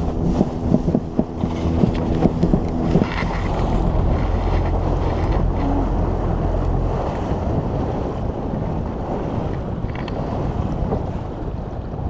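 Small fishing boat under way across choppy water. The motor hums steadily under heavy wind buffeting on the microphone, and the hull slaps and splashes through the waves. About three seconds in, the motor's hum sinks into the wind and water noise.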